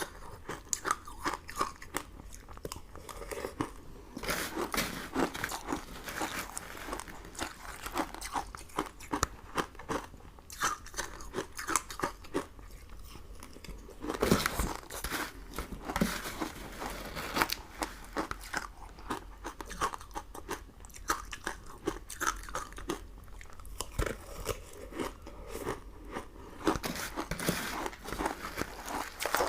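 ASMR eating sounds of biting and chewing crunchy sugary sweets: a dense run of crisp crunches, with a louder bite about fourteen seconds in.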